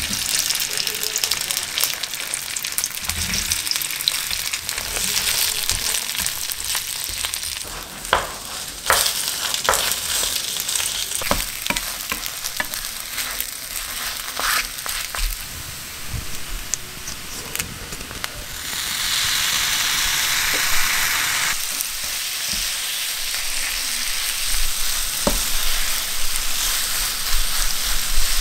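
Long rice cakes sizzling as they fry in oil in a nonstick pan, with a wooden spatula scraping and tapping against the pan as they are stirred. The sizzle swells louder for a few seconds about two-thirds of the way through.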